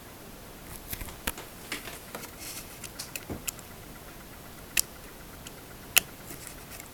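Handling noise: a run of small sharp clicks and taps with brief rustling in the first half, then two louder single clicks near the end.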